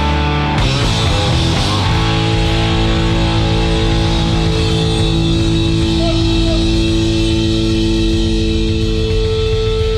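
Three-piece rock band playing live: a short busy passage on drums, guitar and bass, then about two seconds in a long held chord on electric guitar and bass, with the drums still playing underneath.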